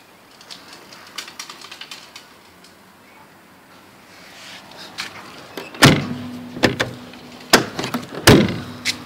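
A few light clicks, then from about six seconds in a run of five or six loud bangs and thumps, typical of a Scania 111 truck's cab door being opened, shut and knocked.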